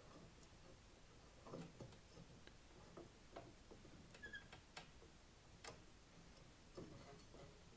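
Near silence with a few faint, irregular clicks and soft knocks: a hand working the rubber auger belt off the pulley of a two-stage snowblower.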